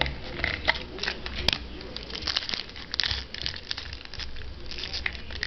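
Trading card pack wrapper crinkling and tearing as a pack is ripped open and handled, in a run of irregular crackles and small clicks.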